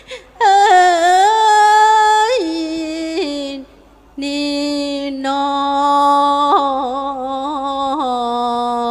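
A woman singing Thai Buddhist sarabhanya verse solo and unaccompanied, in long held notes with small ornaments. The singing comes in two phrases with a short break about three and a half seconds in.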